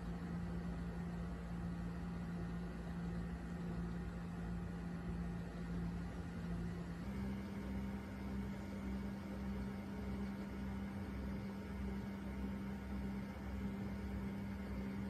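A steady low hum with faint steady tones above it, stepping slightly higher in pitch about seven seconds in.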